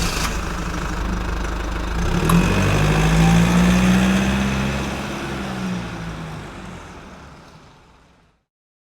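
Motor vehicle engine running, growing louder a few seconds in and then fading away, as if driving off.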